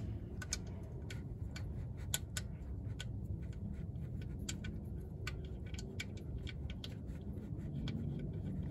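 Faint, irregular metallic clicks and scratches as the oil drain plug is turned back into a 2012 Chevy Impala's oil pan by hand, over a low steady rumble.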